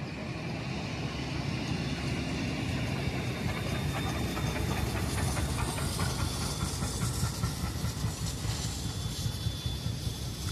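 Steam-hauled heritage train rolling past: a steady rumble of wheels on the rails with some steam hiss.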